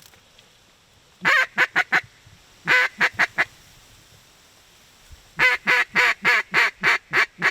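Duck call blown in quick runs of loud, nasal quacks: four, then four, then a longer string of about eight, calling to incoming ducks to turn them toward the hunters.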